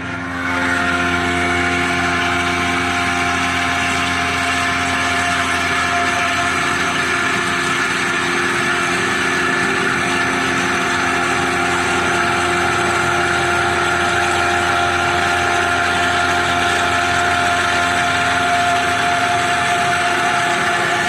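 CNC milling machine running steadily, a machine hum with several steady whining tones, starting just after the beginning and holding unchanged throughout.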